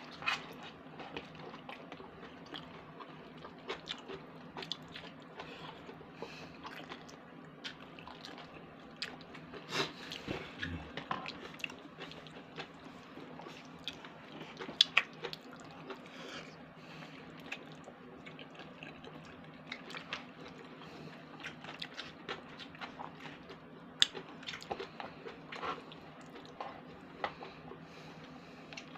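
A person eating pasta with chopsticks: slurping noodles and chewing, with scattered sharp smacks and clicks, the loudest about 15 and 24 seconds in, over a steady low hum.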